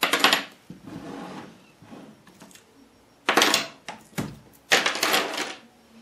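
Hard clattering in several short bursts as a plastic soap mold and its metal fittings are handled and set down on a tabletop.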